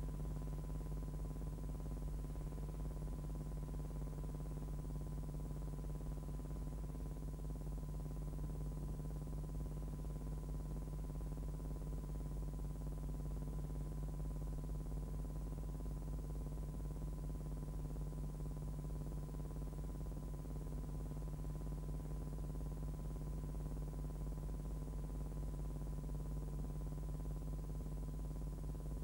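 Steady electrical hum with a thin high tone above it, unchanging: the noise of a silent film's transfer, with no recorded sound of its own.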